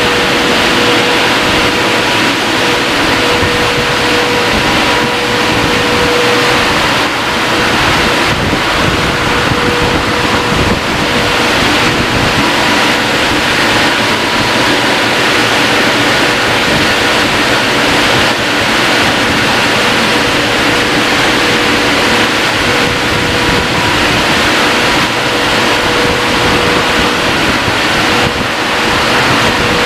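Christ Varius gantry car wash's drying blowers running: a loud, steady rush of air with a hum, as the dryer arch travels over the wet car.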